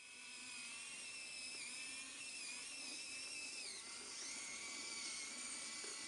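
Faint, high-pitched whine of the continuous-rotation servo motors driving a small remote-control model tank's tracks, a steady whine in several tones that drops in pitch a little before four seconds in and shifts again just after.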